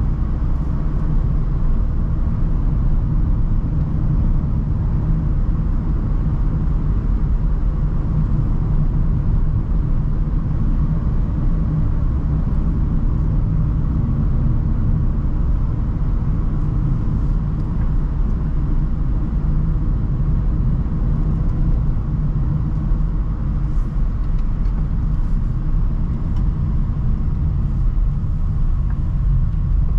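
Renault Trafic van driving at steady speed, a continuous low rumble of road and engine noise.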